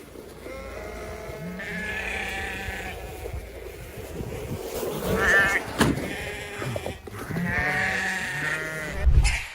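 Farm animals bleating: three long, wavering bleats, with a sharp click in the middle and a low thump near the end.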